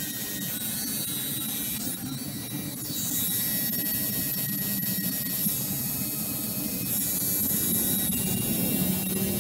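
Tattoo machine running steadily while the needle works ink into skin.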